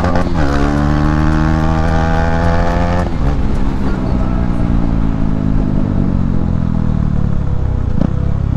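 Hero Xpulse 200's single-cylinder engine pulling under throttle, its pitch rising with a brief dip just after the start. About three seconds in the throttle closes and the engine note falls steadily as the bike slows.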